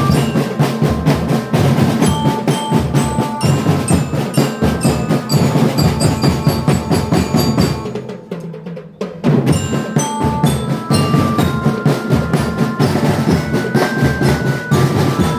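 Indonesian school marching drum band playing: snare and bass drums keeping a busy beat under a glockenspiel (bell lyre) melody. The drums break off for about a second a little past halfway, then come back in.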